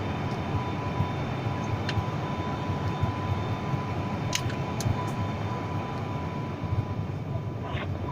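Steady engine and airflow noise inside a passenger airliner cabin during the descent to land, with a thin steady whine over the low rumble. A few sharp clicks sound about four and a half seconds in.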